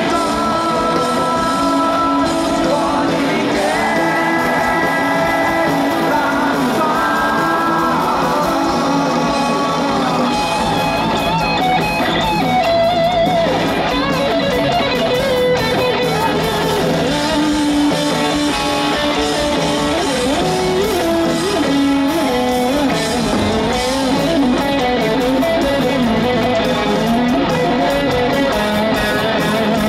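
Heavy metal band playing live: sung vocals over electric guitars and drums in the first part, then a melodic lead line on an electric guitar that keeps moving in pitch.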